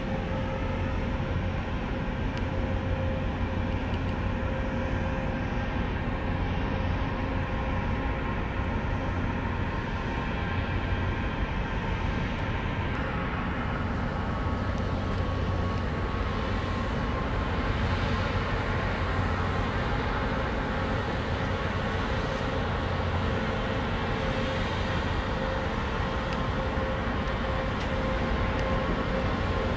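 Steady low machinery drone from the large heavy-lift crane vessel BOKALIFT 1 under way close by, with a constant mid-pitched hum over a noisy rumble.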